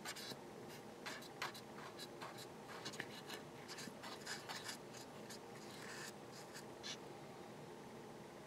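Faint, irregular scratching and rubbing strokes as grime is scrubbed off the plastic inside a Casio LK-33 keyboard, over a low steady hum.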